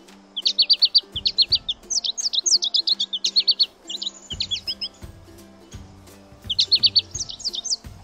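Sparrow singing: a long run of quick, high chirping notes through the first half, then a shorter burst near the end. Quiet background music plays underneath.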